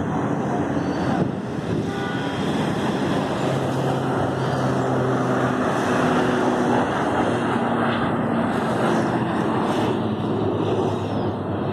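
Steady noise of road traffic from the street below, with the drone of passing vehicle engines through the middle.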